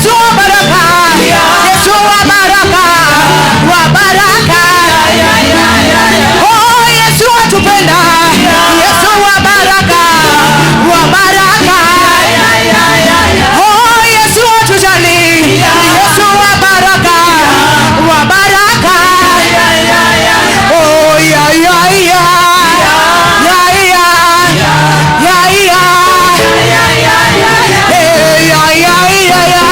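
Loud praise music with singing: a worship song with voices over instruments and a steady bass line.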